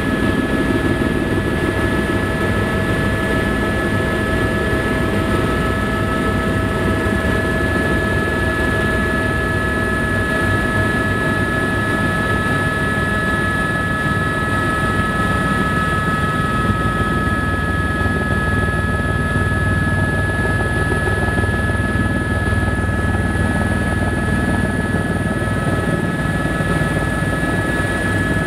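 Helicopter in flight heard from inside the cabin: steady engine and rotor noise with a constant high whine over it.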